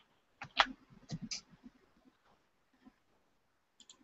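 A cluster of sharp clicks and light knocks about half a second to a second and a half in, then two quick clicks near the end.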